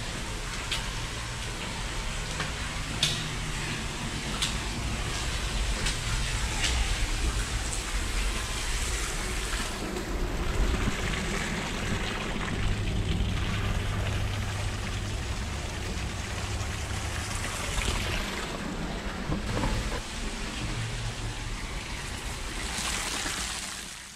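Shallow water running through a storm-water tunnel, a steady rushing with a few sharp clicks and knocks scattered through it.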